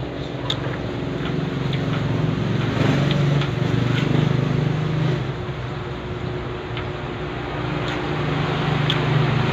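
A motor engine humming steadily, swelling louder about three seconds in and again near the end, with a few faint clicks over it.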